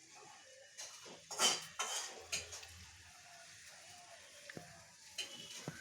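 A few light clattering knocks, loudest about a second and a half in, with smaller clicks later.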